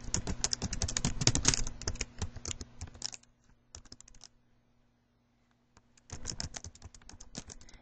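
Computer keyboard being typed on in quick bursts of key clicks, with a pause of about two seconds in the middle.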